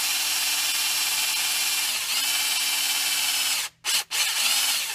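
Electric drill driving a long sheet-metal screw into a crankshaft oil seal, its motor running at a steady whine with a brief dip in pitch about two seconds in. It stops about three and a half seconds in, then gives two short trigger bursts at lower speed as the screw is set into the seal.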